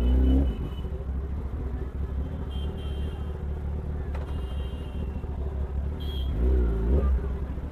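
Kawasaki ZX-10R superbike's inline-four engine idling steadily at standstill.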